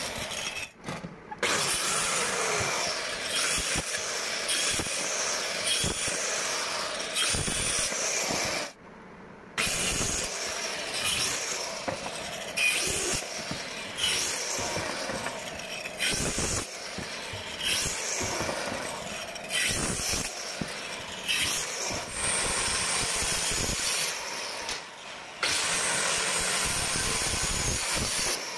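Stanley STSP125 1320-watt wood and marble cutter running and cutting through wood and plywood in several separate cuts, with a short break about nine seconds in.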